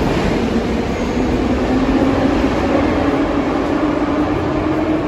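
Yerevan Metro train running at the station platform: a steady rumble with a humming motor tone that shifts slightly in pitch.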